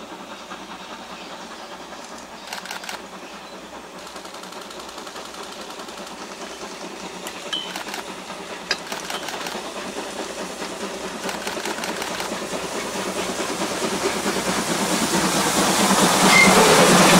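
C58 steam locomotive hauling passenger cars approaches round a curve, its steam and wheels-on-rail sound rising gradually from faint to loudest near the end as it comes close.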